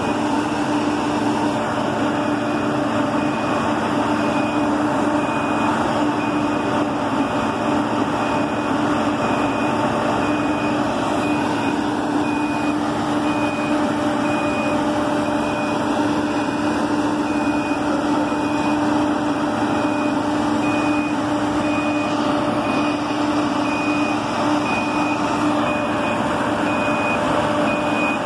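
Crawler drill rig running with a steady mechanical hum made of several constant tones, and a high warning alarm beeping at an even, rapid pace throughout.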